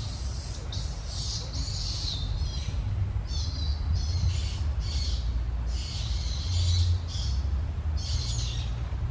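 Birds calling: short, high-pitched chirps repeated about once a second, over a low steady rumble.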